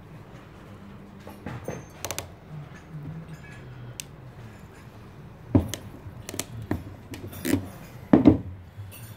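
Hand ratchet crimping (swage) tool with hardened steel jaws being set on and squeezed shut over a 2mm steel wire rope ferrule. It makes irregular sharp metal clicks and clacks, loudest about five and a half and eight seconds in.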